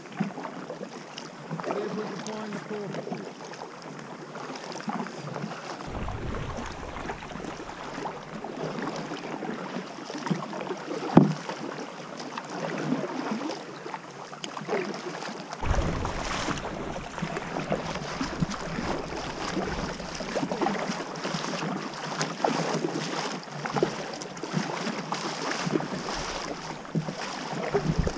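Kayak paddle strokes on calm sea water: blades dipping, splashing and dripping in an uneven rhythm, with wind buffeting the microphone at times. A single sharp knock about eleven seconds in.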